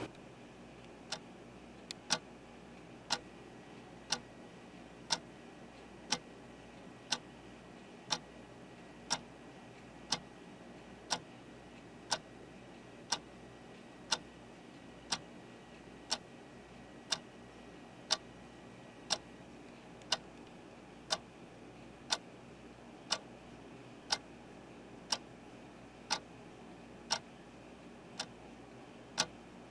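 A clock ticking steadily, about once a second, over faint room hiss.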